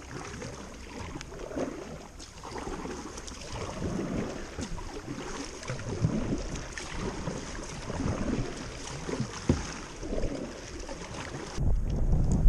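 Kayak paddle strokes dipping and splashing in the water in uneven swells. Wind starts buffeting the microphone about a second before the end.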